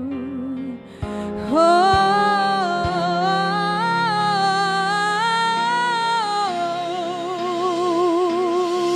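A high female voice singing a wordless vocalise over instrumental backing. It holds long notes that step up and down, then settles on a held note with wide vibrato near the end.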